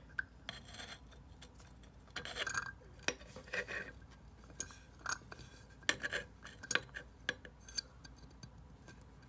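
Small metal hand tools and parts clinking and scraping, as a tap with a just-extracted stripped screw on it is handled. The sound is a scatter of sharp clicks with a few short scrapes, and thins out in the last couple of seconds.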